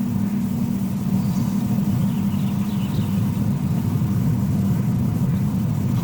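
A steady low rumble, with a few faint, short, high chirps about one and three seconds in.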